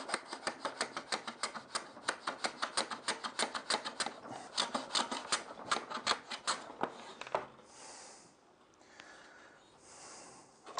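Metal hand plane run on its side along a shooting board, shaving the end grain of a board square: a fast run of short, evenly spaced cutting strokes that stops about seven and a half seconds in, followed by quieter handling.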